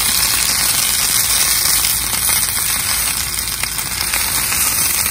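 Tomatoes and serrano chilies charring on a Blackstone flat-top griddle, sizzling steadily.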